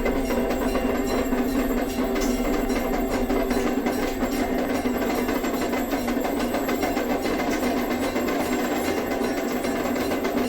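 Layered devotional sound-effect track: a steady, unbroken shankh (conch shell) tone under a fast, even damru rattle.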